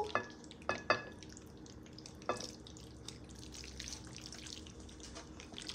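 Metal tongs knocking against a pan and ceramic bowl a few times in the first couple of seconds, some with a short ring, then soft wet squelching of creamy Alfredo pasta being scraped and sliding into the bowl.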